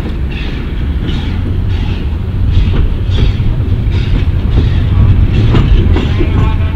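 Steam locomotive No. 81 working as it pulls two cars away around a curve: repeated sharp beats over a low rumble, growing a little louder toward the end.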